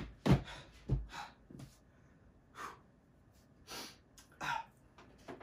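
Handling of a hard red storage case for a hair dryer: a thump about a third of a second in as it is set down or closed, then a few softer knocks and short breathy puffs.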